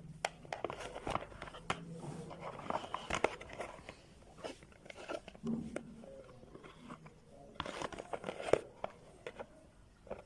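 Irregular clicks, taps and scraping of small hard parts being handled, with some crinkling, as an electric blender is worked on.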